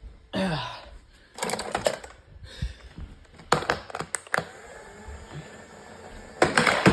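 Robot vacuum being kicked across the floor: quick clusters of hard plastic knocks and clatter, three bursts of several knocks each.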